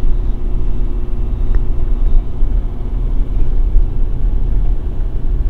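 Steady low rumble of a car's engine and tyres heard from inside the cabin while driving along a sealed road.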